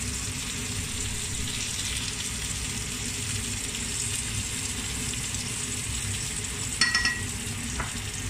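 Breaded fish fillets frying in hot oil in a pan, a steady sizzle. About seven seconds in, a brief cluster of sharp clicks, the loudest moment, with tongs working among the fillets.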